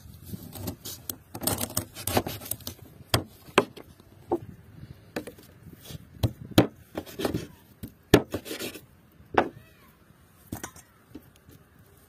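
Kitchen knife cutting through raw duck meat and bone on a cutting board: irregular sharp knocks of the blade hitting the board, with scraping and rubbing between them. The knocks thin out near the end.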